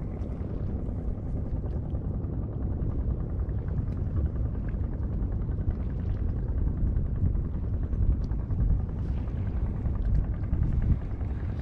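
A small fishing boat's engine running steadily, a low, even rumble.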